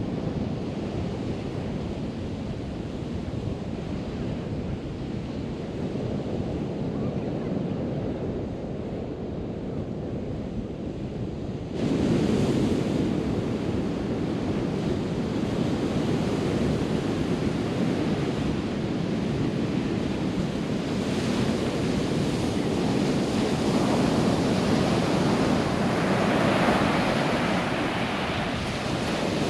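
Gulf of Mexico surf washing onto the beach, with wind buffeting the microphone. About twelve seconds in the sound jumps abruptly louder and brighter and stays that way.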